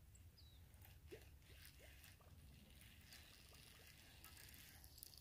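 Near silence: faint outdoor ambience with a low rumble, a few faint short rising chirps and scattered soft ticks.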